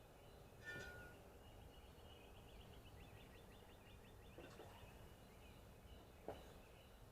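Near silence with faint bird calls: a short chirp about a second in, then a thin, rapid high trill. There is a faint click near the end.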